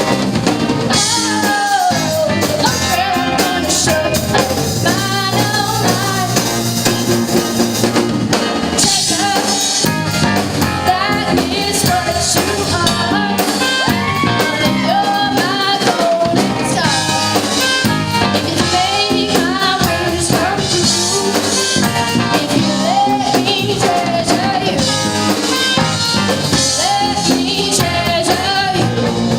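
A live rock band playing a song, with a girl singing lead over drums, bass guitar, electric guitar and keyboard.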